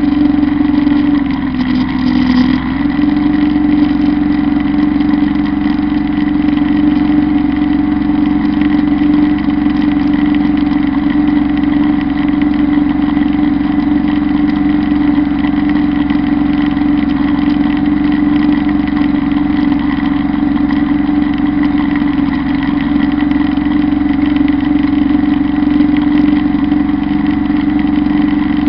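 Kubota B1-17 compact tractor's three-cylinder diesel engine running steadily under load, driving a Zanon drum mower through tall grass. Its pitch dips briefly about two seconds in, then holds steady.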